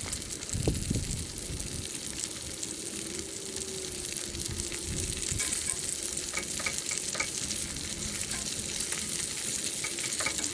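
Steak sizzling steadily as it sears over a campfire, a continuous crackling hiss.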